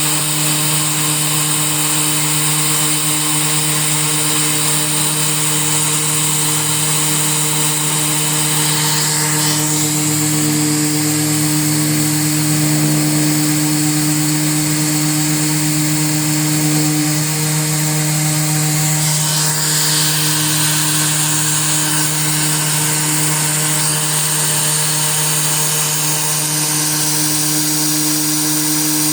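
A CNC 3018 desktop router milling aluminium: a steady spindle whine with a high cutting hiss, and the sound shifts slightly about a third and two-thirds of the way through as the cut changes.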